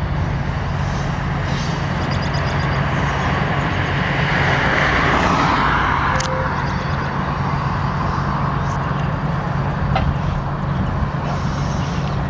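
Passenger train cars rolling across a railroad overpass: a steady low rumble that swells for a couple of seconds near the middle.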